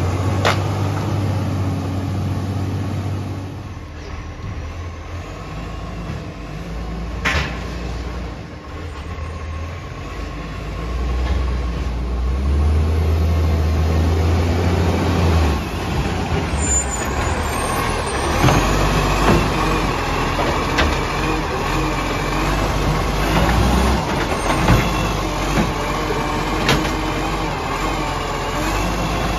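Side-loading garbage truck's diesel engine running as the truck drives along the street and pulls up at the bins, with a few brief sharp sounds along the way. Near the end the hydraulic arm is working, lifting a wheelie bin into the hopper, and a whine rises over the engine.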